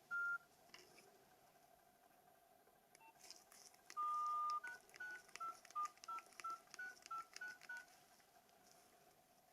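Nokia 2760 mobile phone's electronic beeps: one short beep, then about four seconds in a longer beep followed by a quick run of about ten short single-tone beeps at shifting pitches, with faint clicks of the keys between them.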